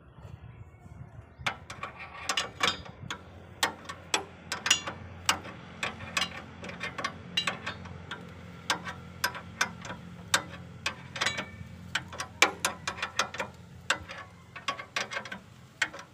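Hand ratchet wrench clicking in short, irregular runs while working the nuts that hold the axle to the leaf springs, starting about a second and a half in, over a steady low hum.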